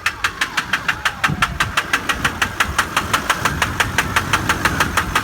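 2002 Duramax LB7 6.6-litre V8 turbodiesel running at idle with a loud, regular knock, about six or seven sharp knocks a second. The mechanic suspects bad injectors rather than the engine itself, since the oil level is fine and the smoke is black.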